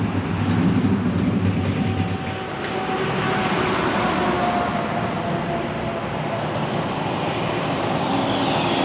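Road traffic: a steady rush of passing vehicles' tyres and engines, with a low engine hum in the first two seconds.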